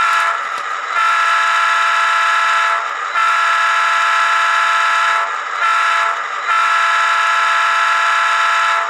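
Recorded Nathan P3 chord horn played by a Soundtraxx Tsunami2 sound decoder in an HO-scale GP38-2 model locomotive. A brief blast ends just after the start, then come two long blasts, a short one and a long one: the long-long-short-long grade-crossing signal.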